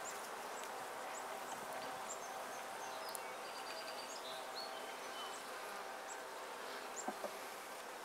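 Steady hum of many honeybees buzzing around an open top-bar hive and a comb of bees held up close.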